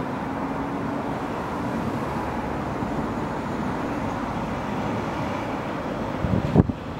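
Class 142 Pacer diesel multiple unit approaching, heard as a steady rumble of its diesel engine and wheels on the track. A few low thumps come near the end.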